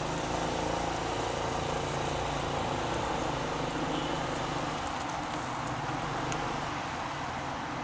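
Motorcycle engine running steadily at low speed, with road and wind noise, heard from the rider's position.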